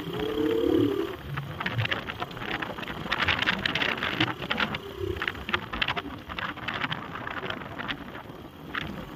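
Motorcycle riding along the road, its engine running low under constant irregular crackling from wind buffeting the microphone.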